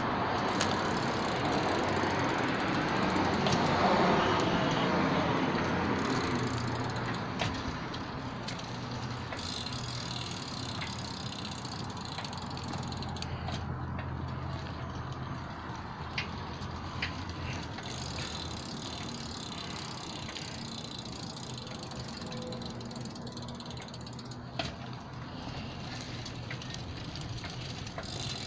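A car passing, swelling to its loudest a few seconds in and fading away, followed by a steady low hum with a few faint clicks.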